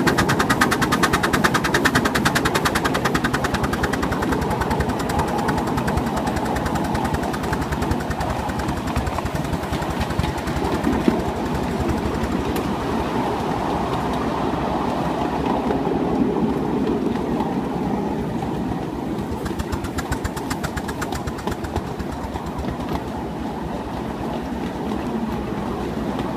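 Miniature steam locomotive running along the track with a quick, even beat from its exhaust and running gear, easing slightly toward the end.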